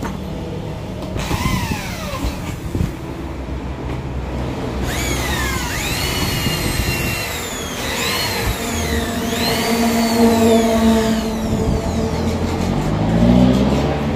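Handheld electric drills boring holes in screen-frame parts, the motors revving up and winding down with each trigger pull: a whine that rises, holds and then falls, repeated many times, with two drills overlapping for several seconds in the middle.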